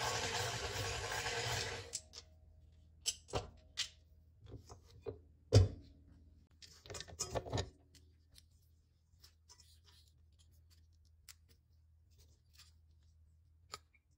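KitchenAid tilt-head stand mixer running, kneading brioche dough with its dough hook, then switching off about two seconds in. A run of sharp clicks and knocks of metal parts follows as the dough hook is taken off, the loudest about five and a half seconds in.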